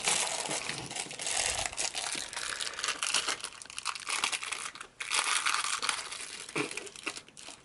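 Crinkly plastic wrapping of an L.O.L. Surprise toy being handled and torn, rustling on and off with a brief pause about five seconds in.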